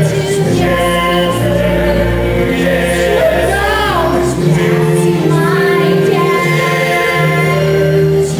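Musical-theatre ensemble singing in chorus over instrumental accompaniment, with long held notes and a wavering vocal run about halfway through.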